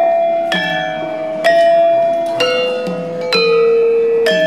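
Javanese bronze gamelan instruments struck about once a second in a slow stepping melody, each note ringing on under the next.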